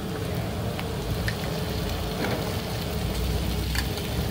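Chopped onion sizzling steadily in hot oil in a frying pan, with a few light clicks as a spoon scoops tomato paste from a small tin.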